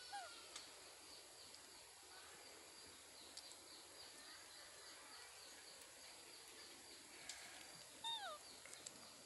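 Quiet outdoor ambience with a faint steady high buzz. Two short animal calls fall in pitch, a faint one at the start and a louder one about eight seconds in.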